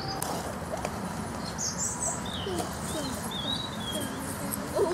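Outdoor woodland background: a steady rush, with a small bird singing a few short warbled phrases from about two seconds in.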